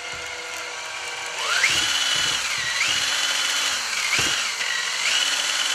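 Power drill spinning a fishing reel at fast speed to strip line off the spool. About a second and a half in, the motor speeds up sharply into a high whine that dips in pitch and climbs back twice.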